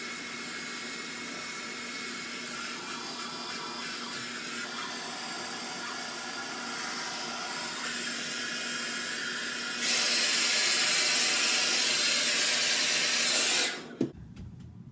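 Handheld hair dryer blowing steadily, growing clearly louder about ten seconds in, then switching off suddenly near the end.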